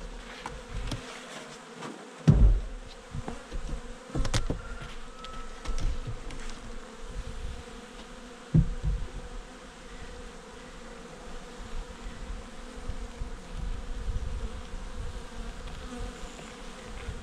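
Honeybee colony humming steadily as the hive is opened, with sharp knocks from the hive tool and lid about two, four and eight and a half seconds in.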